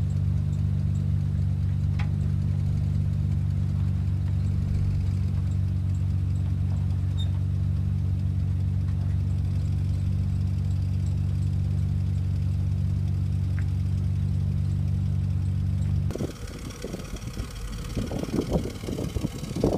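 Chevrolet Silverado pickup's 5.7-litre V8 idling with a steady, even drone. About sixteen seconds in the drone cuts off and gives way to an uneven rumbling.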